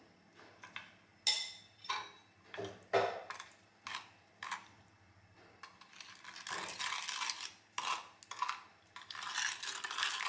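Spoons clicking and tapping against a ceramic bowl as mashed pumpkin goes into a bowl of liquid. About six seconds in, a plastic spoon starts stirring the pumpkin into the liquid with a steady scraping, sloshing sound.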